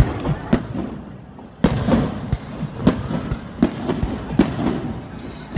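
Aerial fireworks going off in a rapid string of sharp bangs and booms, about one every half second to second, with a low rumble between them.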